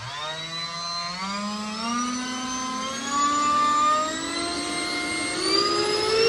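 Audi A4 turbocharger inlet wheel spun by a high-speed brushless RC ducted-fan motor, starting up and spooling up as a whine that rises in pitch in several steps as the throttle is turned up.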